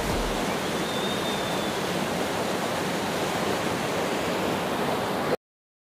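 Water released through open sluice gates rushing and churning down a stone-walled drain channel, a loud, steady rush. It cuts off abruptly near the end.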